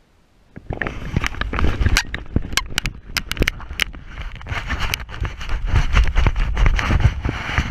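A paraglider pilot's launch run: hurried footsteps and knocking gear on stony ground over wind rushing on the microphone, starting abruptly about a second in.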